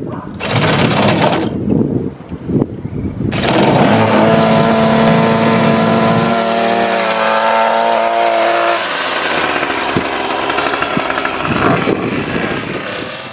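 Petrol string trimmer engine being pull-started: a short burst about half a second in, then it catches about three seconds in and runs at high speed. Near nine seconds in it drops back to a lower, steady running.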